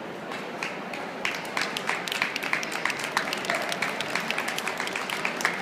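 Spectators applauding, the clapping starting about a second in and keeping on, over a background murmur of crowd.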